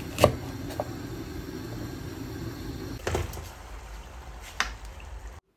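Food-preparation sounds: a knife cutting a green ada jamir citrus knocks sharply on a wooden cutting board about a quarter second in. A few lighter knocks and clicks follow, over low steady background noise, and the sound cuts out just before the end.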